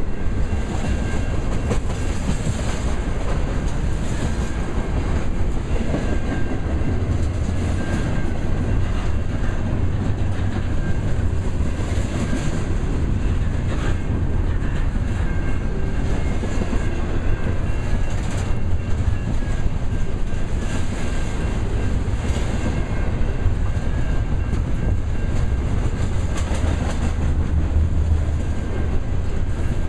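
Double-stack intermodal well cars rolling past close by: a steady rumble of steel wheels on rail with clickety-clack as the wheels cross rail joints.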